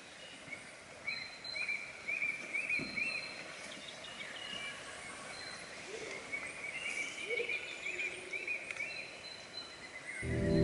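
Birds chirping in many short, repeated notes over a faint steady background noise, with music coming in near the end.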